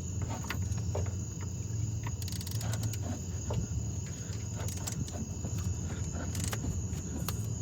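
Faint scattered clicks and knocks of tools on the engine as the crankshaft is turned to work a stretch-fit belt onto the pulleys, over a steady low hum and a steady high trill like crickets.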